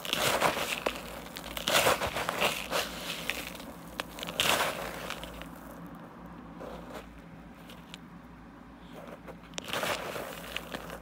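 Fingers digging and squeezing through a bowl of mothball flakes and mothballs: a grainy, crisp crunching in bursts. The crunching is loudest in the first five seconds, quieter for a while, then there is another burst near the end.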